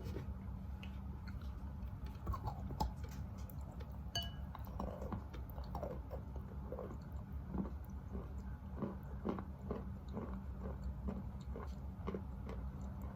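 Close-up chewing of wet Khrapovsky chalk: a few crunchy bites, then steady chewing at about two chews a second as the grainy chalk is ground into a paste.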